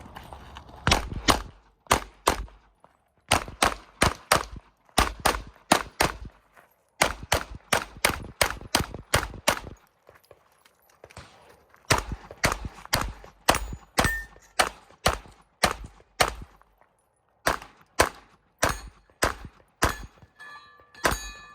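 Rapid string of 9mm pistol shots from a Glock 17, fired mostly in quick pairs, with two short pauses between strings. Near the end, struck steel targets ring.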